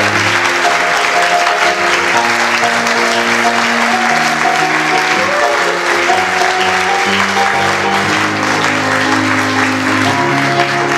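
Audience applauding steadily over instrumental music, with held notes changing every second or so, as the cast takes its curtain-call bow.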